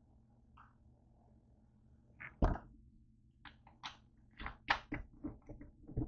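A plastic 2-litre soda bottle set down on a wooden tabletop with one thump, followed by a quick run of light clicks and knocks as it is handled.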